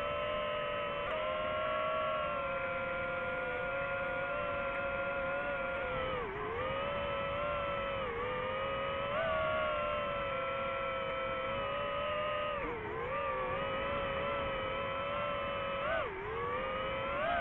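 Drone motors and propellers whining steadily, the pitch dipping briefly about four times and swinging back up as the throttle eases and opens again.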